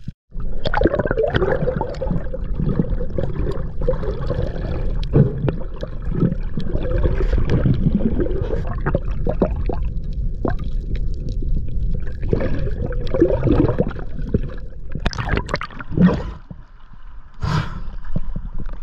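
Water gurgling and bubbling against an action camera held underwater, muffled and continuous, with the water sloshing as the camera comes up to the surface near the end.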